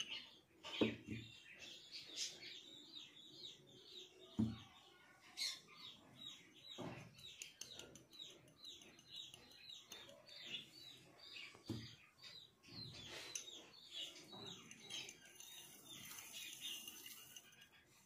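Small birds chirping steadily in the background, with quick repeated high chirps. A few soft knocks come through, the loudest about a second in and near four and a half seconds.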